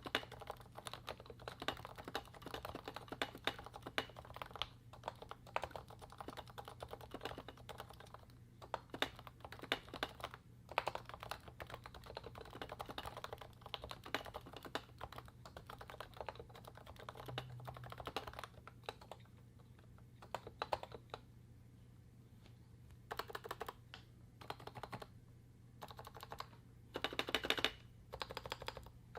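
Typing on a Realforce 87U Topre keyboard (55 g electrostatic capacitive switches fitted with lubed Novatouch sliders) wearing DEV/TTY MT3 PBT keycaps. Fast, continuous keystrokes thin to scattered presses past the middle, then a quick dense flurry comes near the end. A steady low hum runs underneath.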